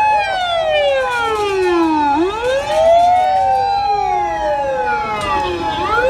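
Two fire engine sirens wailing out of step, each sweeping down and back up in slow glides of about two seconds.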